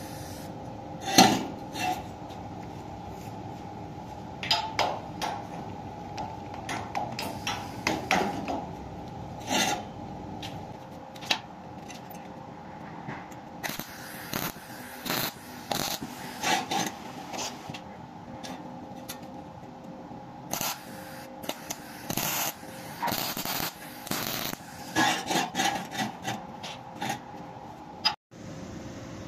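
MIG welder tack-welding small steel parts: repeated short bursts of crackling arc, from a fraction of a second to about a second long, with pauses between them, over a steady hum. The bursts stop a couple of seconds before the end.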